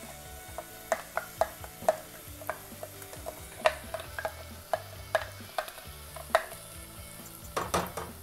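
A metal spoon clinking and scraping against a pan and mixer jar as ground masala paste is spooned into sautéed onions and tomatoes and stirred, with a light sizzle. The knocks are irregular, about a dozen, with a quick cluster near the end.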